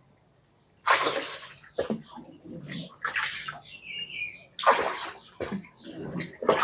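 Water splashing in irregular spurts from a hand-turned Wirtz spiral water pump, delivering water in gushes with short gaps between them. The strongest gushes come about a second in and again near five seconds.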